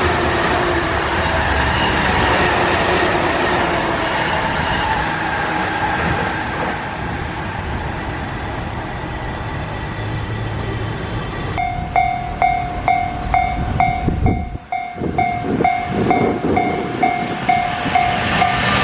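Freight train hauled by an EF210 electric locomotive running past, with steady wheel and rail noise. About two-thirds of the way in, a level-crossing warning bell starts striking about twice a second over the rolling train.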